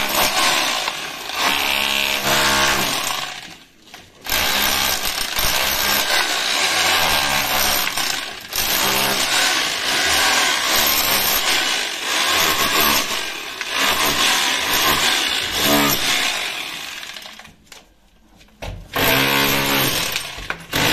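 Bosch SDS rotary hammer in chisel mode, its pointed bit hammering into concrete and brick, with chunks breaking away. It stops briefly twice, about four seconds in and again near the end, then starts up again.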